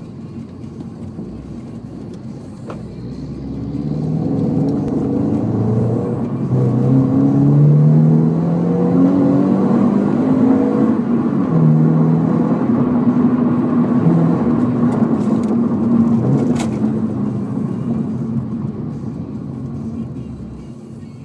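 Toyota 86's 2.0-litre flat-four boxer engine, breathing through a Borla unequal-length header and Milltek resonated exhaust, heard from inside the cabin. It revs up hard toward 6,000 rpm, the engine note rising and growing loud, holds, then falls away as the driver eases off and the car slows.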